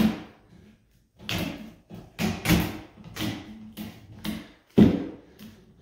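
Gorilla Tape being peeled off the roll as it is wound around a pole: a run of short, noisy pulls, about eight in a row, each under half a second.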